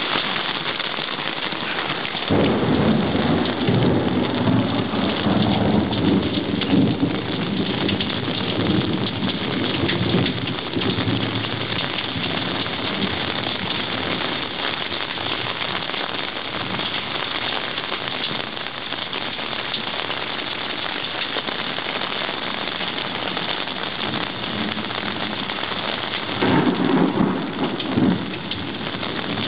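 Heavy rain falling steadily in a thunderstorm, with a long roll of thunder starting about two seconds in and dying away over some ten seconds, and a shorter rumble of thunder near the end.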